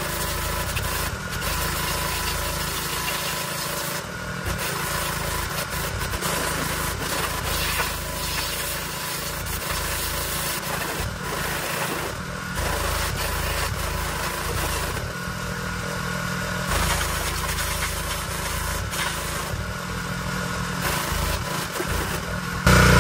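Pressure washer running, its water jet spraying with a steady motor hum under a hiss that rises and dips as the spray moves. Just before the end a sudden louder sound cuts in, with falling tones.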